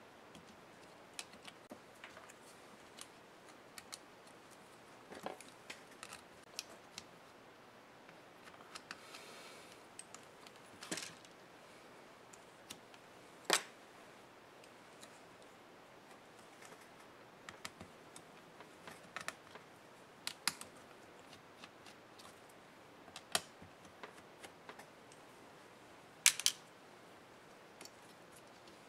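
Scattered small clicks and taps of a laptop being taken apart by hand: a small screwdriver, screws and plastic and metal parts being handled. A few sharper clicks stand out, the loudest about 13 seconds in and a close pair near the end.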